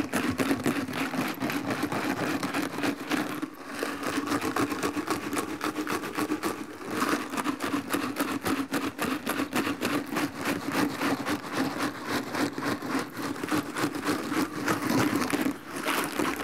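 Ice and salt rattling inside a plastic tub that is being shaken hard and fast, a rapid, noisy clatter with a short break about three and a half seconds in, over a steady low hum. The shaking freezes a bag of milk and cream into ice cream.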